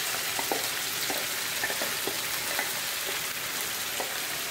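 Chicken pieces frying in hot oil in a non-stick kadai: a steady sizzle, with light scattered taps and scrapes as a wooden spatula scrapes thick ground masala paste out of a mixer jar into the pan.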